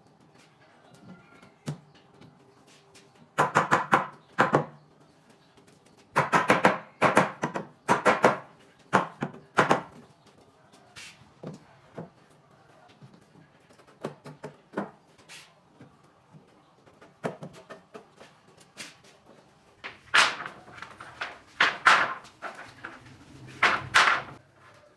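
Hammer blows on wood, in three bursts of several quick strikes with lighter taps between.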